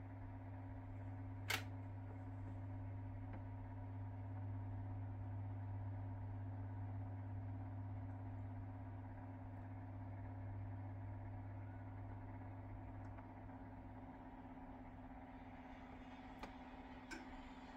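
Quiet, steady low hum with one sharp click about a second and a half in and two fainter clicks near the end.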